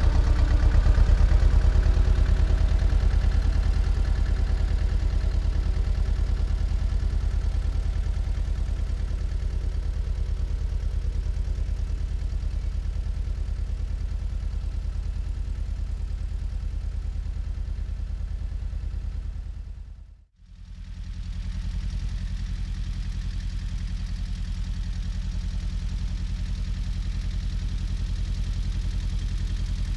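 Small old farm tractor's engine running steadily with a fast, even pulse as it tows a field roller, fading as it pulls away. The sound drops out abruptly about two-thirds of the way in, then the engine carries on, steady and fainter.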